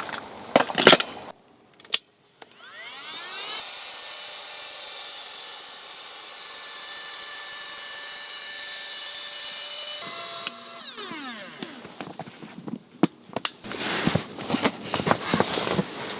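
A small electric motor spins up, runs steadily for about seven seconds and winds down. There is crunching and rustling noise before it and again afterwards.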